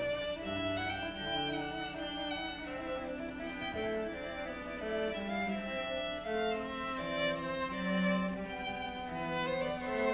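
Solo viola bowed, playing a melody of notes each held about half a second to a second.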